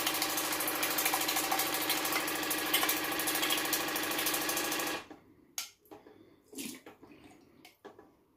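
Electric water flosser's pump motor running with a steady pulsing buzz as its jet sprays water around the inside of a plastic tank. It cuts off sharply about five seconds in, followed by a few faint clicks and drips.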